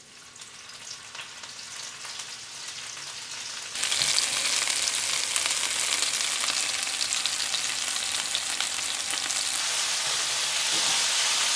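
Chopped frozen mashed potato frying in hot oil in a frying pan: a steady sizzling hiss that builds, then jumps louder about four seconds in.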